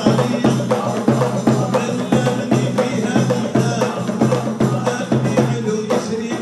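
Issawa Sufi music: frame drums and small hand drums beating a steady rhythm over sustained low tones.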